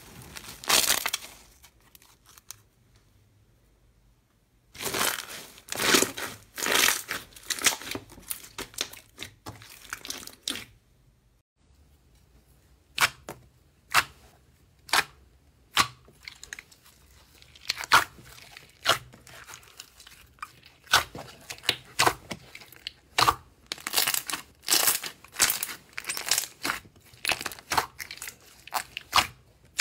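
Slime being worked by hand: sticky crackling as it is pressed through a wire mesh, then blue pearlescent slime being poked, stretched and squeezed, giving a quick run of short, sharp pops and crackles.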